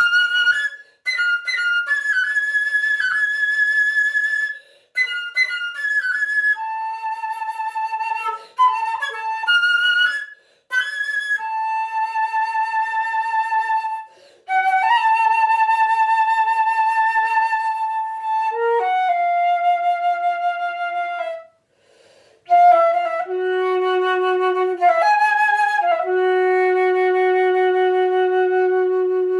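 Solo flute playing a free, unaccompanied melody: quick rising and falling runs alternate with long held notes, some with vibrato, between short breathing pauses. Near the end it drops to a low note held for several seconds.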